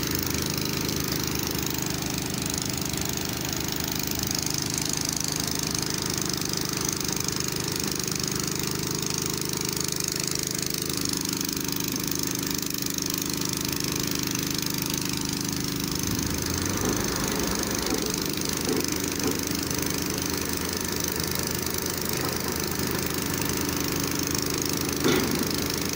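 Diesel engine of an Escorts F15 pick-and-carry crane running steadily while it holds a suspended concrete chamber, with a constant hum and a high hiss over it.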